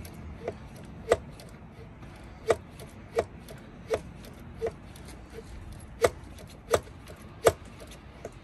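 Hand pump of a pressure brake bleeder being worked up and down, giving a sharp click at each stroke, a little more than one a second, as the bleeder is pumped up to 20 psi for bleeding the brakes.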